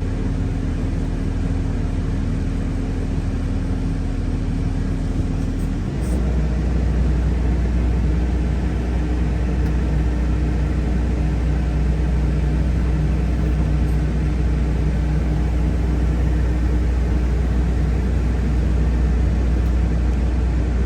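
Hitachi mini excavator's diesel engine running steadily with a low drone. About six seconds in it gets louder and its tone steps to a different pitch.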